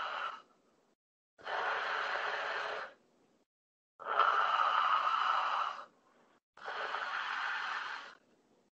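A man breathing deeply and audibly through a wide-open mouth as a postural breathing exercise for stammering: three long breaths of about one and a half to two seconds each, with silent gaps between. It is heard over a video call, which cuts to dead silence between breaths.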